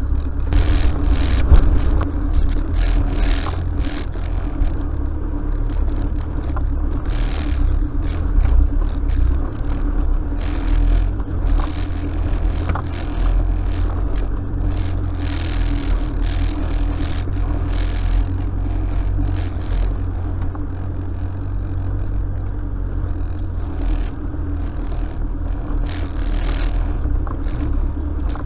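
Four-wheel-drive vehicle crawling over a rough, off-track desert route, heard from inside the cab: a steady engine drone and low rumble, broken by frequent short rattles and scrapes as it bounces along.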